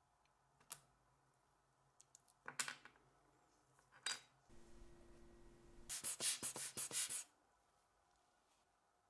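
Small clicks and taps of watch parts and crystals being handled with gloved fingers: a single click early, a few light clicks a couple of seconds in, then a fast run of sharp clicks about six seconds in. A brief low hum sounds just before that run.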